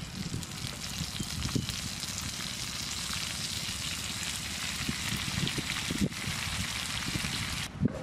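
Liver and fresh greens sizzling in a frying pan over a portable gas stove, a steady hiss with a few soft knocks as the greens go in. The sizzle cuts off abruptly near the end.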